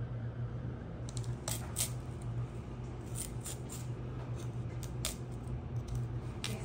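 Kitchen knife cutting the stems off a fresh wasabi root on a cutting board: several sharp, crisp cuts at irregular intervals from about a second in, over a steady low hum.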